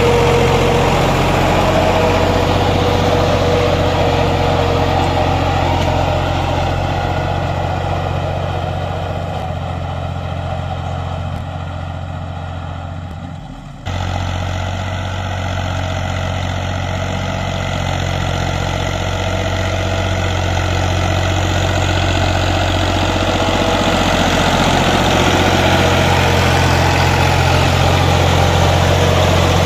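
Fiat 480 tractor's three-cylinder diesel engine running steadily as the tractor works the field. The sound grows gradually quieter, then returns abruptly to full level about fourteen seconds in.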